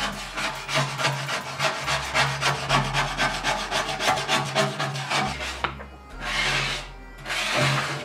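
Rapid hand strokes of an abrasive tool scraping back and forth over a metal part, about four or five strokes a second, then two longer, slower strokes near the end.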